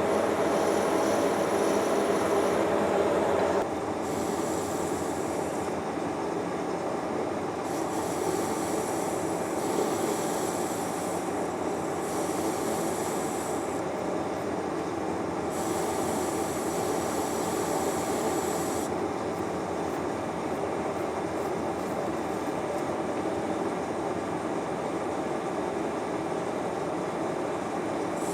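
Metal lathe running steadily, turning steel, with a higher-pitched cutting hiss that comes and goes in stretches of a couple of seconds. The sound drops a little in level about four seconds in.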